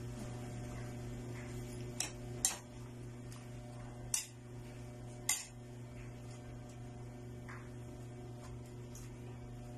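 A few sharp clicks of a cooking utensil against a pan as sotanghon noodles are mixed, four in the first half, over a steady low electrical hum.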